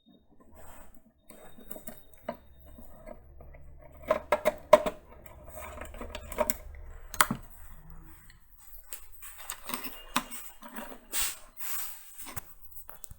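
Small clicks, taps and light clatter of hands working a charger cable into an opened Bluetooth speaker's plastic casing, with a few sharper knocks about four to five seconds in and another near seven seconds.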